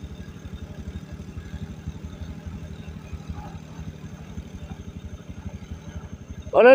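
Automatic scooter's single-cylinder engine running steadily at low revs, a fast even pulsing. Near the end a person starts a long, held shout.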